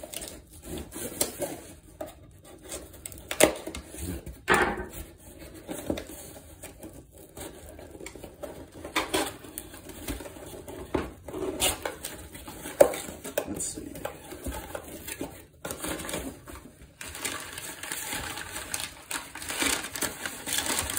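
Cardboard shipping box being opened and unpacked by hand: packing tape slit with a knife, cardboard flaps and pieces handled with irregular knocks and scrapes, then crumpled packing paper rustling over the last few seconds.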